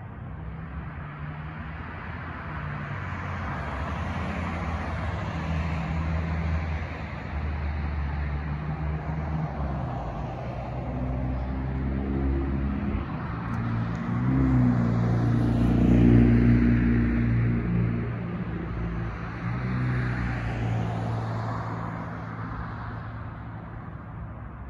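A passing vehicle's engine hum that builds slowly to its loudest about two-thirds through and then fades.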